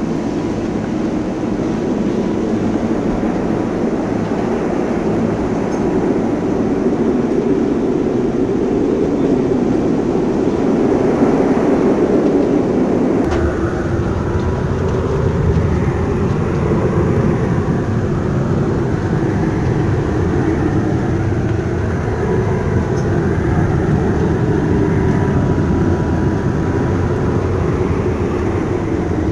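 Steady, loud rumble of wind and rough sea heard aboard a ship ploughing through a storm. About thirteen seconds in, the rumble abruptly deepens.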